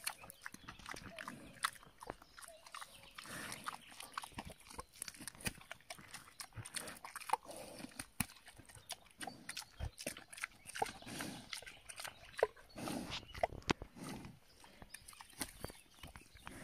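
A wild hog eating a dead fish: irregular wet smacking, chewing and crunching.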